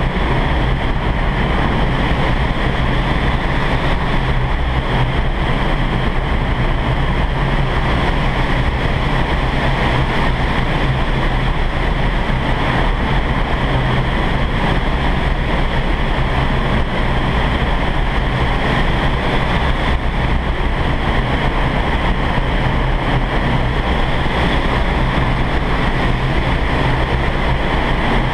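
Vertical wind tunnel running at flying speed: loud, steady rushing air through the flight chamber with a strong low rumble underneath, unchanging throughout.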